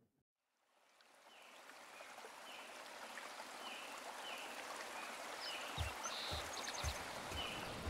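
Outdoor ambience fading in after a moment of silence: a steady rush like running water, with short high chirps repeating roughly twice a second and a few soft low thuds near the end.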